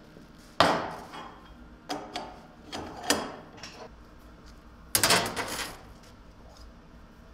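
Knocks and clanks of metal being handled on a steel workbench. About five seconds in, a thin metal sheet is laid down on the bench with a longer clatter, the loudest sound here.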